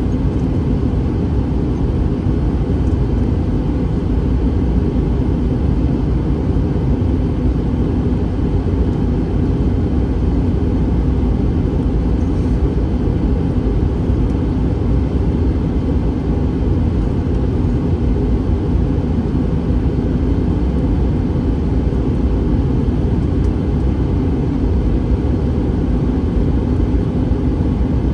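Steady cabin noise inside an Airbus A321 airliner: a low, unchanging drone of jet engines and rushing air.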